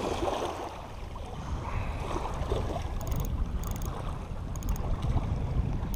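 Wind buffeting the microphone, with water splashing as a hooked salmon thrashes at the surface near shore. About halfway through, several short high buzzes from the baitcasting reel's drag as line is pulled out.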